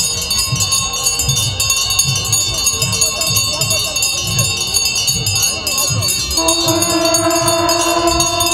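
Many small bells jingling and ringing without a break, over a low beat about twice a second and the sound of a crowd. About six seconds in, a voice joins with one long held note.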